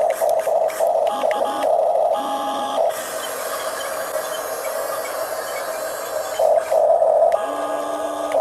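Huina 1569 radio-controlled toy bulldozer running, its small electric motors whining, louder and uneven in the first few seconds and again near the end.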